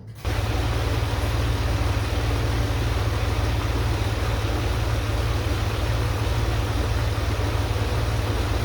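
An engine idling steadily, with a deep low rumble. It starts and cuts off abruptly.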